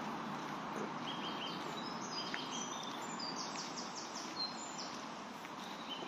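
Small songbirds singing in short, high whistled phrases over the steady rush of a shallow woodland brook. A quick run of rapid notes comes about halfway through.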